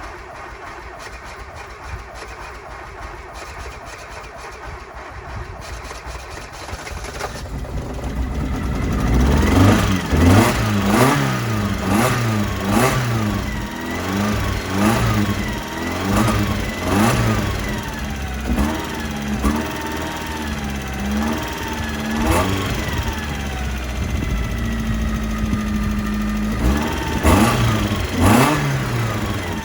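1991 Mazda Miata 1.6 L four-cylinder engine cranking on the starter with oil in its cylinders, catching about eight seconds in and then revved up and down repeatedly, with steadier running in between. The owner judges from this start that the bottom end is good and the head gasket is blown.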